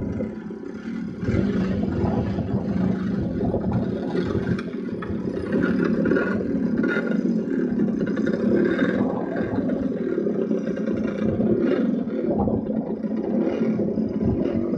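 Steady rumbling noise that swells and dips unevenly, like wind buffeting the microphone.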